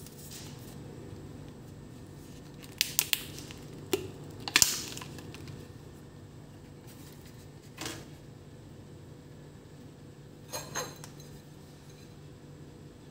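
Thin clear plastic food tray crackling and clicking as it is handled and a mooncake is tipped out of it onto a metal knife blade: a quick run of sharp clicks about three seconds in, the loudest crackle just before five seconds, then a single click near eight seconds and a short cluster near eleven. A steady low hum runs underneath.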